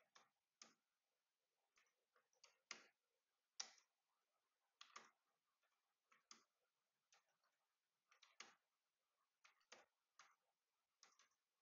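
Faint keystrokes on a computer keyboard, short clicks coming singly and in small clusters at an uneven typing pace.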